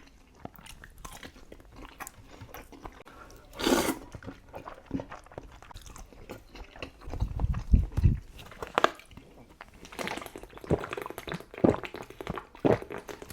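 Close-miked chewing and wet mouth sounds of someone eating Buldak spicy instant noodles: many short smacks and clicks, a brief noisy burst about four seconds in, and a few low thuds around eight seconds.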